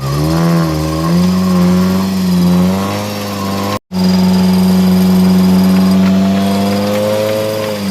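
Off-road 4x4's engine revving up and down under load, then held at high, nearly steady revs that ease off at the end; the sound cuts out for an instant a little under four seconds in.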